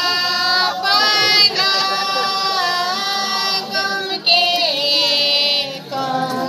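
High-pitched singing of a melody in long, held notes, each lasting about a second.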